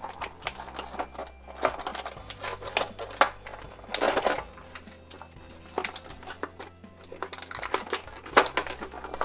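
A toy's clear plastic blister packaging and cardboard box being opened by hand: crinkling and crackling with many sharp plastic snaps, loudest about four seconds in and again just after eight seconds.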